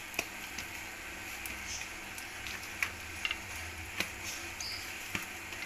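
A pan of chicken cooking in a little water, a faint steady sizzle, with a few light clicks scattered through.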